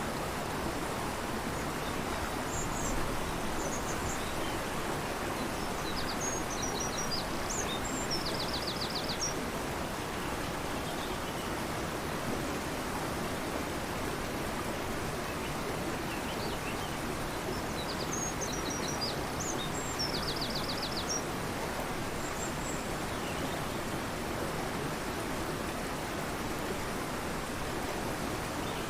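A fast-flowing river rushes steadily while a bird sings twice, two similar high phrases about ten seconds apart, each ending in a quick trill.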